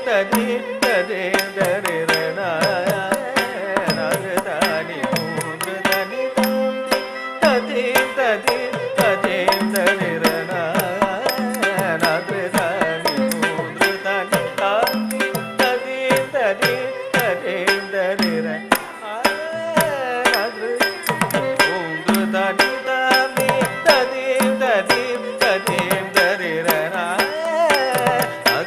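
Live Carnatic ensemble playing a thillana: quick, continuous mridangam strokes under a gliding vocal and violin melody over a steady drone.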